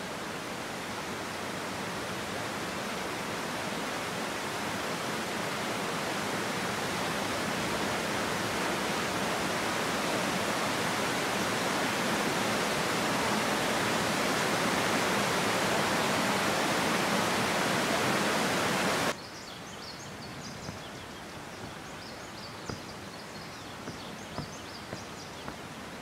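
Waterfall cascading over boulders: a steady rushing that slowly grows louder, then cuts off abruptly about two-thirds of the way through. What follows is a quieter ambience with faint high chirps and a few soft clicks.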